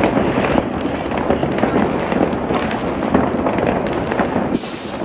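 Many fireworks and firecrackers going off at once across a city: a continuous din of overlapping bangs, pops and crackles, with a brief hiss near the end.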